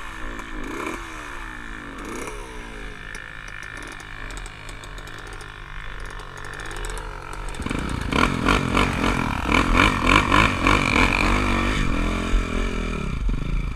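Motocross bike engines revving, the pitch sweeping up and down repeatedly. About eight seconds in the engine sound grows much louder and busier, as if a bike revs hard close by.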